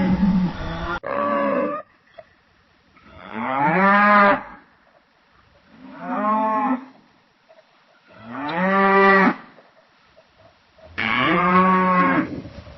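Cattle mooing: a series of separate moos, each about a second long, with short quiet pauses between them. The recording changes abruptly about a second in and again near the end.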